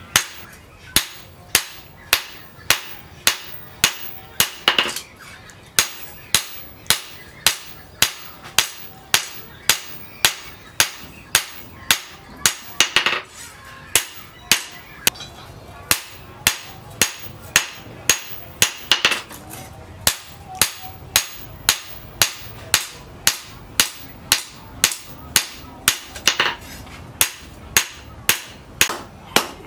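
Hand hammer striking steel on an anvil in a steady forging rhythm, about two blows a second, each a sharp metallic ring.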